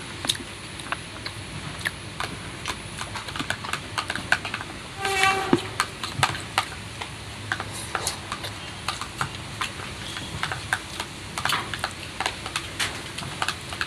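Eating sounds: wet chewing and lip-smacking clicks from a person eating fried noodles and chicken rendang by hand, irregular and close together, with a short hum about five seconds in.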